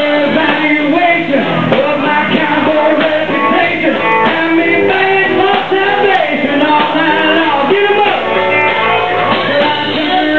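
Live country-rock band playing, with singing over guitars and drums.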